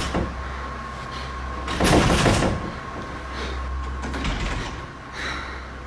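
A doorknob being jiggled and rattled, with the loudest rattle about two seconds in and fainter rattles after it.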